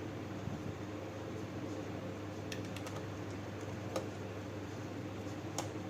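A few sharp, scattered clicks and taps of small plastic laptop parts and tools being handled during reassembly, over a steady low hum.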